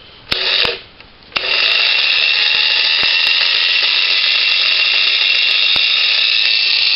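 Ryobi P420 18-volt cordless 4-1/2" angle grinder switched on free-running: a short blip about a third of a second in, then, from about a second and a half in, running steadily with a high-pitched whine and no load.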